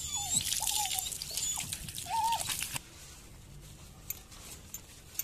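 Water from a garden hose spraying onto a wet husky's coat, a steady hiss with a few short wavering whine-like tones over it. The spray cuts off suddenly about three seconds in, leaving only faint small clicks.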